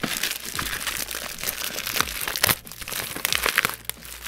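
A courier parcel being opened and unwrapped by hand: packaging crinkling and rustling, with irregular sharp crackles and taps.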